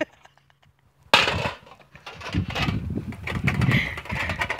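A disposable foil pan is hit with a sudden loud bang about a second in, then rustles and crinkles irregularly as it is grabbed and swung.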